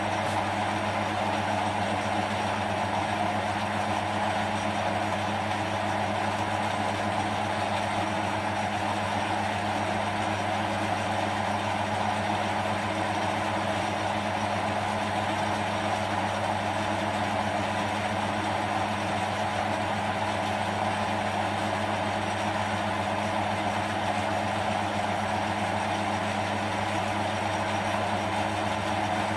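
Small bench metal lathe running steadily while a fine drill bit is fed through the centre of a small metal part; a steady hum with no change in pitch.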